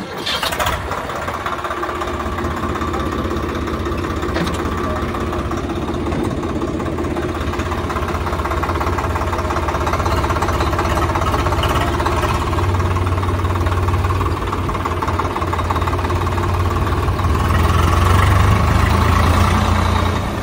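Swaraj tractor's diesel engine running while the tractor drives off, heard close up from the driver's seat. It gets louder about twelve seconds in and louder again toward the end as it picks up speed.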